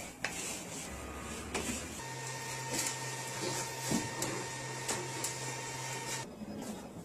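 A small electric motor whirring steadily for about four seconds, starting about two seconds in and cutting off suddenly near the end, with scattered sharp clicks.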